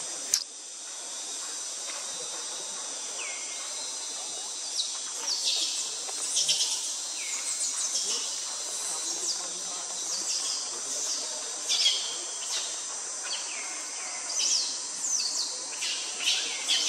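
Forest ambience: a steady high insect drone with bird calls, many quick downward-sweeping chirps that come thick from about five seconds in. A single sharp click just at the start.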